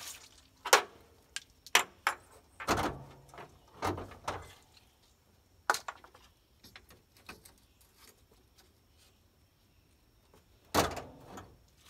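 Scattered clanks and knocks from hands working at a Jeep Cherokee's engine bay and hood, with a heavy thud near the end.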